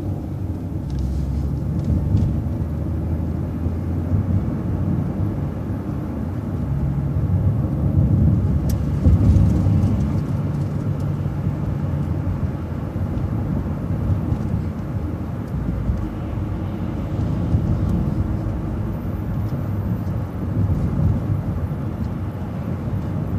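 Transit bus under way, its engine and road noise a steady low rumble that rises briefly as it picks up speed.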